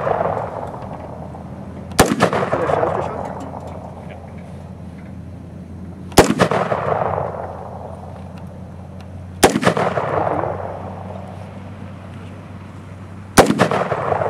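Four shotgun shots fired one at a time, a few seconds apart, each a sharp bang followed by about a second of echo.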